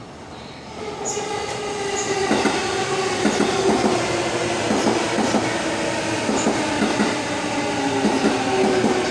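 JR E233 series electric commuter train running past along the platform, wheels knocking over rail joints again and again under a steady whine that grows loud about a second in.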